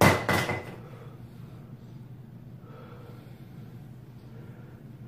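A person's short, sharp breath through nose or mouth in two quick puffs, loud and close, lasting about half a second at the very start; then a steady low hum.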